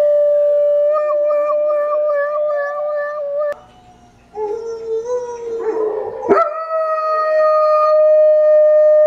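A dog holds a long, steady howl, and a fainter wail glides down and back up beneath it. After a short break, cartoon wolves howl from a TV. Then a German Shepherd howls along in one long, steady note.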